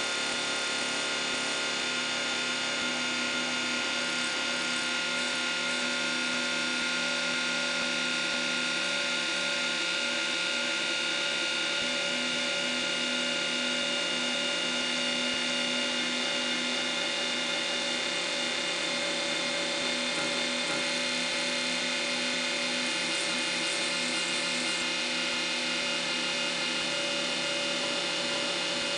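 Robotic friction stir welding machine running steadily, its spindle turning the tool as it stirs and traverses along a magnesium alloy joint: a constant mechanical whir with several held tones and a hiss, unchanged in level throughout.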